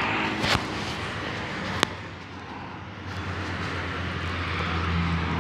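Road traffic going by, with a vehicle engine's low drone growing louder near the end. Two sharp clicks in the first two seconds.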